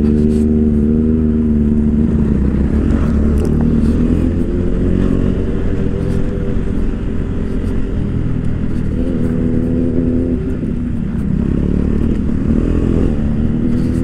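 KTM 390 Adventure's single-cylinder engine running under way on a gravel track. The engine note drops and rises a few times with the throttle, over a steady low rumble of wind and road noise.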